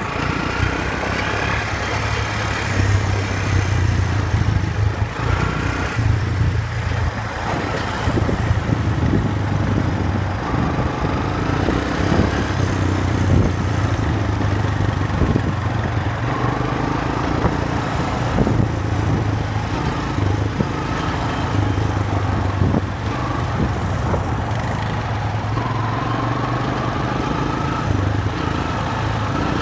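Quad bike engine running while riding, its revs rising and falling again and again.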